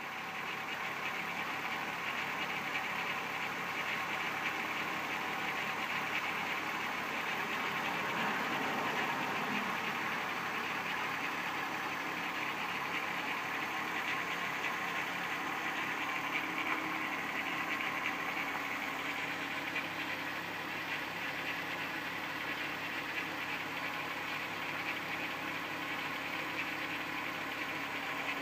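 1994 VW Golf VR6 engine idling steadily with timing chain noise, a sign of a worn timing chain that is not yet severe.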